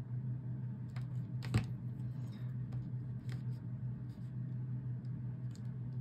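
Faint clicks and taps of small paper pieces being handled and glued together on a craft desk, with one sharper tap about one and a half seconds in, over a steady low hum.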